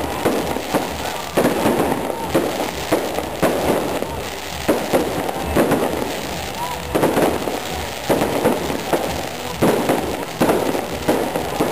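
Aerial fireworks bursting in rapid, irregular succession, several sharp bangs a second.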